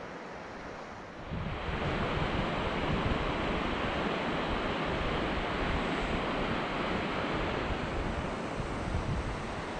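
Steady rushing noise of a mountain creek mixed with wind buffeting the microphone. It jumps louder about a second in and then holds steady.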